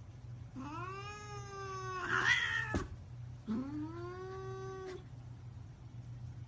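A cat giving two long, drawn-out meows, each rising at the start and then held for about a second and a half; the first turns into a louder, rougher cry near its end. A steady low hum runs underneath.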